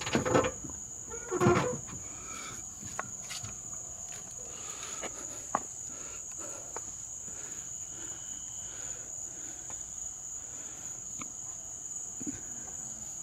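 Night insects singing in a steady high-pitched drone, with a couple of louder brief noises in the first two seconds and a few faint clicks.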